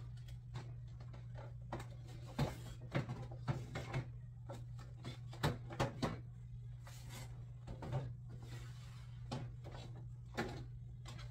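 Irregular light knocks and clicks of small hard objects, such as dolls and toys, being handled and set down on shelves, thickest between about two and six seconds in. A steady low hum runs underneath.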